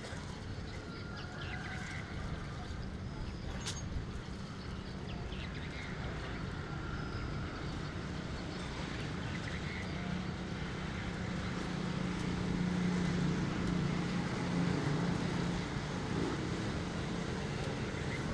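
An engine running steadily with a low hum that grows louder through the middle of the stretch, over outdoor background noise. There is one sharp click about four seconds in.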